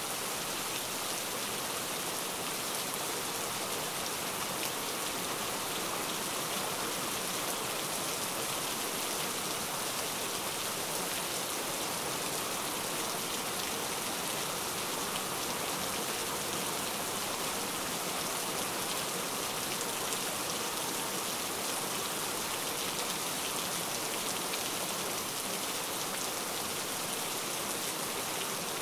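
Steady rain sound, an even unbroken hiss of falling rain with no pauses or changes.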